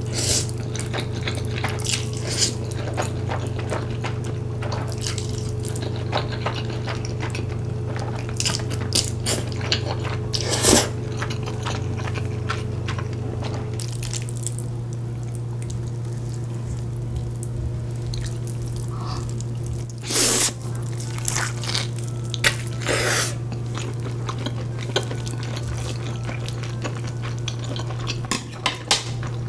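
Close-miked eating: slurping stir-fried ramen noodles and chewing, with many wet mouth clicks and smacks and a few louder slurps, over a steady low hum.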